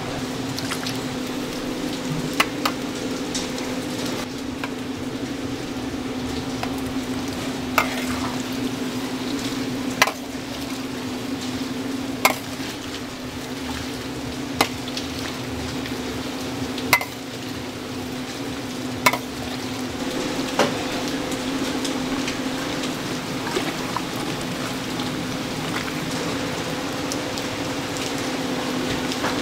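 Taiwanese sweet potato balls deep-frying in a pot of oil with a steady sizzle over a steady low hum, and a sharp tap every two seconds or so.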